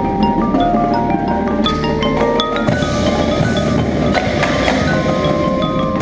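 Indoor percussion ensemble playing, with fast mallet notes on xylophone and glockenspiel heard close up over the rest of the ensemble. A bright wash like a cymbal swells in the middle.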